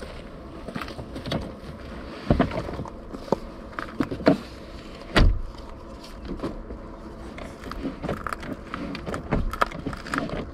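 A string of clicks and knocks, with a few heavier thumps about two, four and five seconds in, from hands working the latches and panels in the boot of a Kia EV6.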